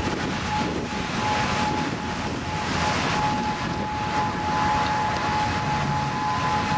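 Outdoor tornado warning siren sounding one steady tone that fades in and out, over loud rushing wind and vehicle noise.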